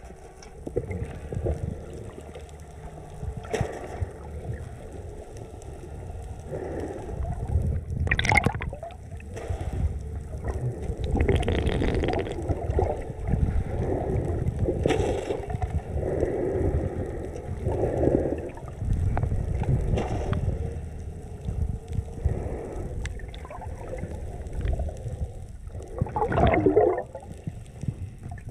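Muffled underwater water noise from a camera submerged in the sea: a steady low rumble with irregular gurgling and bubbling swells.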